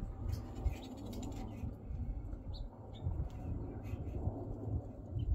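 Wind buffeting the microphone, with a few faint bird chirps. At the very end, the sharp snap of a compound bow being shot.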